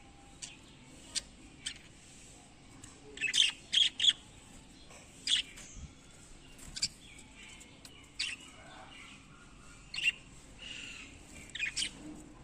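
Budgerigars chirping and squawking in short, sharp, irregular calls, the loudest a quick cluster about three to four seconds in.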